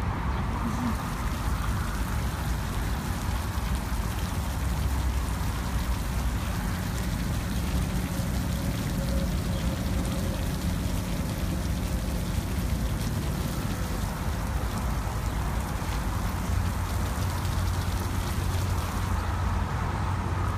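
Water from a dog-park sprinkler spraying and pattering steadily onto the ground, over a steady low rumble.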